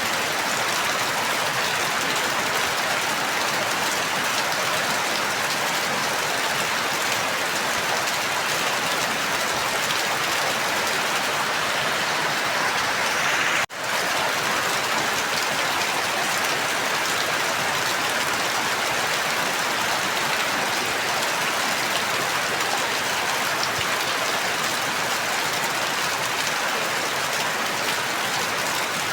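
Steady rain falling, an even hiss of drops. About halfway through it cuts out for an instant and resumes.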